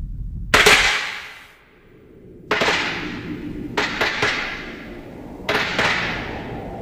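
Three sudden crashing hits of dramatic sound effect, each dying away over a second or more, with a couple of sharp clicks between the second and third.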